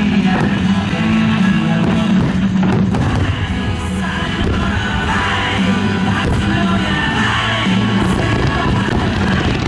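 Loud music with singing, the display's soundtrack, with a few sharp firework bangs cutting through it.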